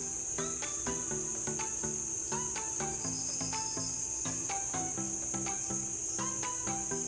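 Background music with a light, steady beat and short stepping notes, over a continuous high-pitched trill of crickets.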